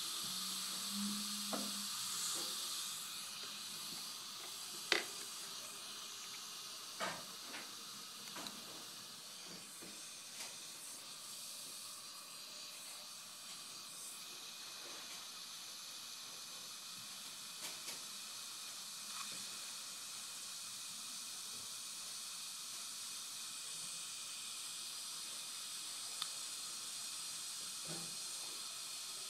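Steady hiss of a NOLA dry-field dental suction system running, with a few light clicks and taps of hand instruments.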